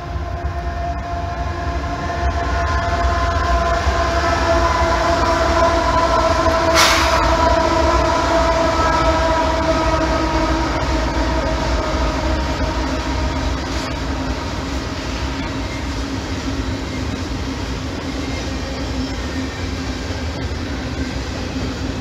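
Union Pacific double-stack container train passing close by: the lead diesel locomotives first, then the loaded well cars rolling over the rails with a continuous rumble. Steady ringing tones sit over the rumble, stronger in the first half, and a single sharp metallic clank comes about seven seconds in.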